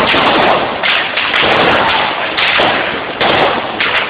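Gunfire: a rapid series of about six single shots, each under a second after the last, every one a sharp bang followed by a ringing echo down the street.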